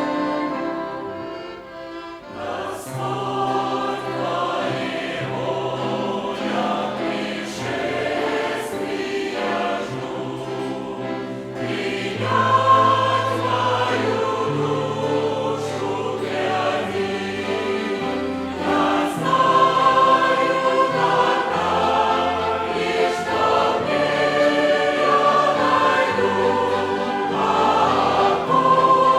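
Church choir singing a hymn with a violin ensemble accompanying; the music thins briefly just after the start, then swells fuller about halfway through.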